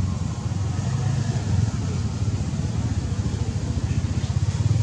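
A motor vehicle's engine running nearby: a loud, low, steady rumble.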